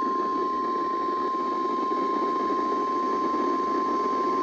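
NOAA Weather Radio 1050 Hz warning alarm tone, the alert that precedes a warning broadcast. It is one steady, unbroken high beep over a hiss of radio static.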